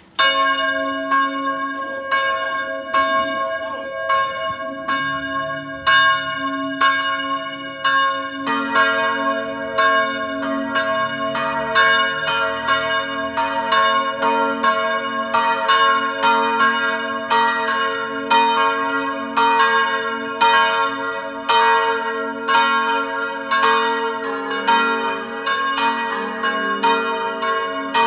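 Peal of four swinging church bells in G-flat major, cast by Giovanni Colbacchini of Trento, ringing full out with repeated overlapping strokes and long ringing tones. The ringing starts suddenly, a lower bell joins about eight seconds in and another lower one near the end, as the bells enter in descending order to build the full peal.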